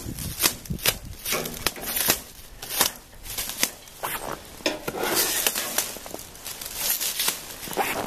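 Clear plastic stretch wrap being pulled, torn and crumpled by hand, crinkling in irregular bursts.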